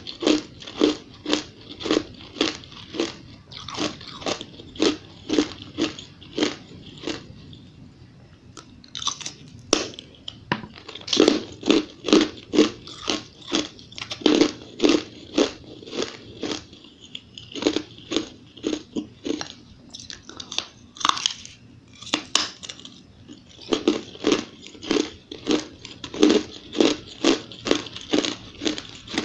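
A person chewing a mouthful of ice, crunching steadily at about two crunches a second, with a few short pauses.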